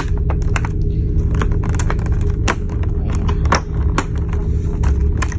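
Steady low drone of the ferry's engines, with many short sharp clicks and light rattles on top, as the plastic-packed lunch items are handled.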